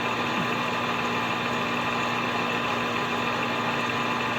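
Milling machine running steadily with an unchanging hum and several steady whine tones, setting up for the final cut on a chainsaw crankcase base.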